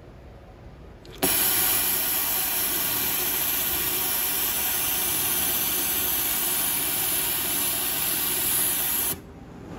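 Kansai Special flat seamer sewing, dominated by the loud hiss of its compressed-air suction drawing away the trimmed-off fabric edge. The hiss starts suddenly about a second in and cuts off suddenly near the end.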